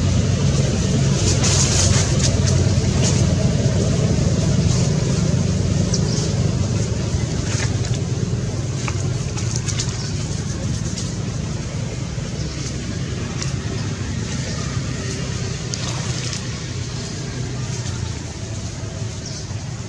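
A steady low engine hum, like a motor vehicle running nearby, easing off gradually toward the end, with scattered faint clicks over it.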